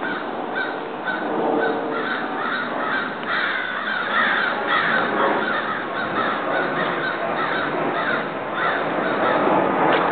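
Several crows cawing back and forth, with overlapping harsh caws coming a few times a second without a break.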